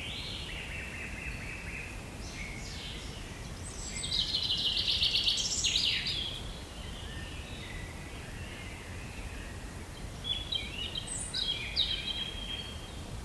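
Small songbirds chirping and singing over a steady low outdoor rumble, with a rapid trill about four seconds in, the loudest part, and a few more short calls near the end.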